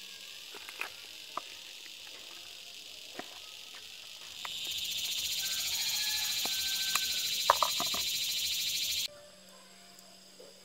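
A high, steady insect chorus that grows louder about four seconds in and cuts off suddenly near the end. Over it come a few short, sharp clicks of scissors cutting through a catfish.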